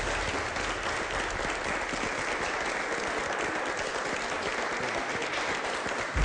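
A group of people clapping their hands: steady applause.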